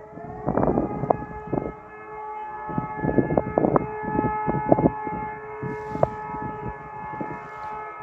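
Civil defence siren sounding in its monthly test. Its tone climbs in the first second, holds steady, and begins to drop near the end. Bursts of rumbling noise come and go over it in the first five seconds.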